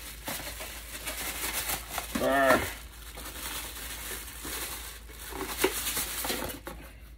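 Plastic bag crinkling and rustling as a wire steam rack is pulled out and unwrapped, with a brief hummed voice sound about two and a half seconds in.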